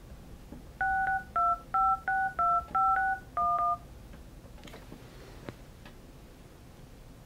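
Grandstream GXV3275 desk phone's speakerphone playing DTMF keypad tones as a number is tapped in on its touchscreen: a quick run of about eight two-note beeps over some three seconds. A few faint clicks follow as the call is placed.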